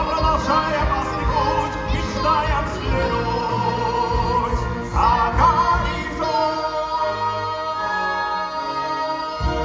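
A musical-theatre song sung in an operatic style with wide vibrato over orchestral backing. About six seconds in, the singing gives way to long held chords.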